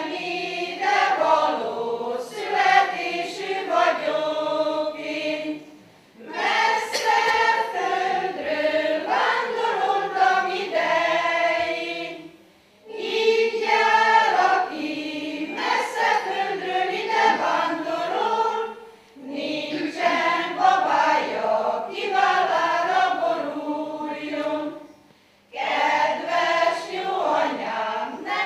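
A women's choir singing unaccompanied, in five phrases each followed by a short breath pause about every six seconds.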